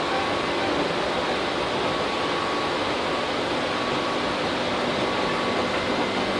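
Inside a Tobu 8000 series commuter train car: a steady hum of the air conditioning and onboard equipment, with a few faint steady tones over it.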